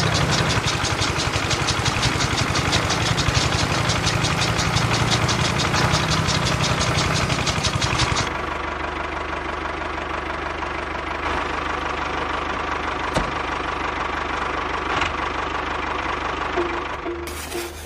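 Small diesel engine of a miniature DIY tractor running fast with a rapid, even knock, belt-driving a model chaff cutter. About eight seconds in the sound drops to a quieter, steadier hum with a faint whine.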